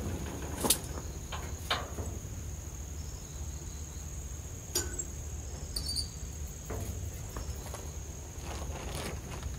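A few sharp knocks and clicks, spaced a second or more apart, from hand work on a metal truck bed panel, over a steady high whine and a low hum.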